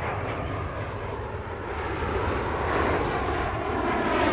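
Military aircraft engine noise, growing louder toward the end as the aircraft draws closer.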